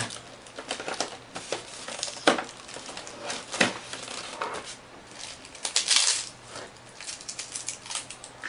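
Hands handling a polystyrene foam packaging tray and the plastic-wrapped parts in it: scattered clicks and taps, with two sharper knocks about two and three and a half seconds in, and a louder burst of rustling around six seconds in.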